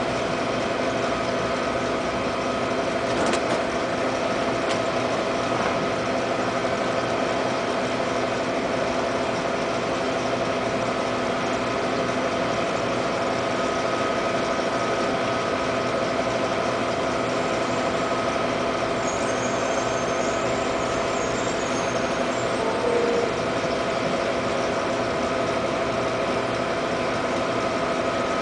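Aquarium pump and filtration equipment running with a steady hum of several held tones, with one brief click about three seconds in.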